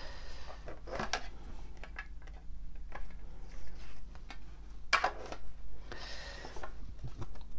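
Large tarot cards of thick, stiff cardstock being handled and slid against one another as they are sorted through. Scattered light clicks and taps, with a few short sliding swishes.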